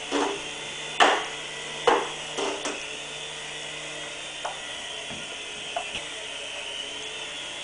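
Small RC toy helicopter's electric motor and rotors whirring with a steady high whine. A run of sharp knocks and clicks cuts through it, the loudest about one and two seconds in.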